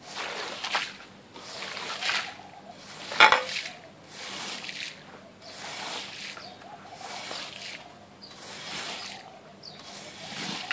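Rubber squeegee on a long pole dragged through a soaked shag carpet, pushing water out of the pile in repeated wet swishing strokes about one a second. A sharper knock about three seconds in.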